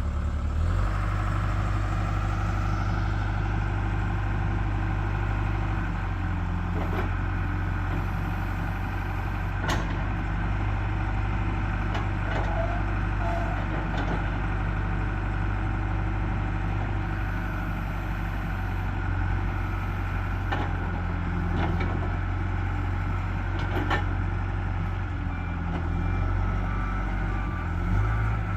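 John Deere 310SG backhoe's 4.5-litre four-cylinder turbo diesel running steadily, with a whine rising over the first few seconds. A few sharp knocks are heard at intervals.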